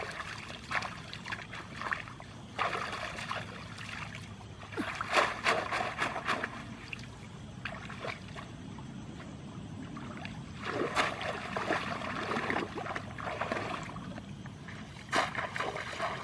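Water splashing and sloshing in irregular bursts as people wade and stir through shallow muddy water, with quieter stretches between the bursts.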